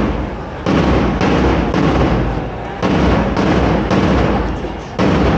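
A loud, distorted booming beat, one heavy hit about every half second, each fading into the next.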